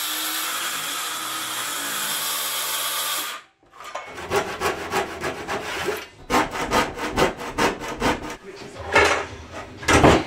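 DeWalt cordless circular saw running through a laminated chipboard worktop, cutting off sharply about three and a half seconds in. Then a handsaw cutting out the corners of the cutout with quick strokes, about three a second, with two louder bumps near the end.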